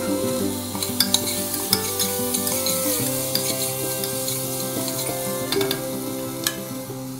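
Chopped vegetables sizzling as they are stir-fried in a pressure cooker, with a metal spoon scraping and clinking against the pot many times. Soft background music with held notes runs underneath.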